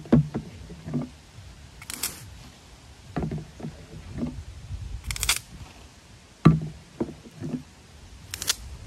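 Herbicide sprayer nozzle giving three short hissing bursts about three seconds apart, as individual plants are spot-sprayed, with low thumps and knocks between the bursts.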